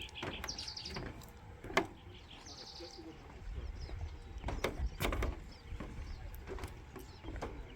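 A small songbird singing a short, high, rapid trill, twice about two seconds apart. A few sharp clicks, the loudest just under two seconds in, and a low wind rumble in the middle.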